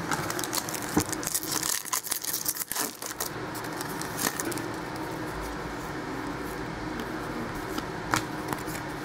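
Trading cards being handled and flipped through, with cards rustling and clicking against each other, busiest in the first few seconds, then a single click near the end. A steady low hum runs underneath.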